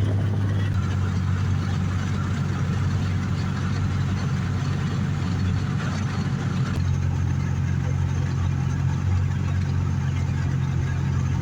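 A vehicle engine running steadily with a low hum, its pitch shifting slightly about seven seconds in.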